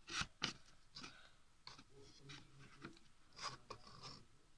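Faint handling noise: a few soft rubs, scrapes and clicks from hands moving the handheld camera around the toys.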